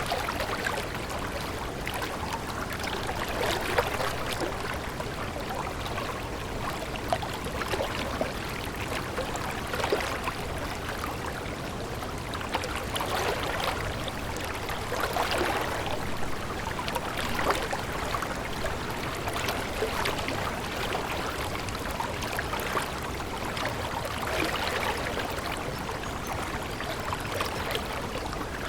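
Stream water flowing steadily, with many small splashes and gurgles.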